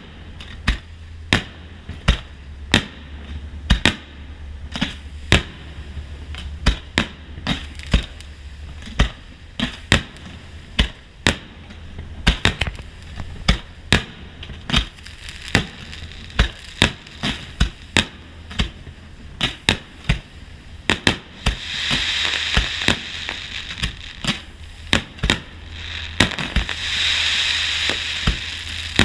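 Aerial fireworks shells bursting in a rapid barrage, a sharp bang every half second to second. Twice near the end a dense crackling swells up over the bangs, as from crackling-star shells.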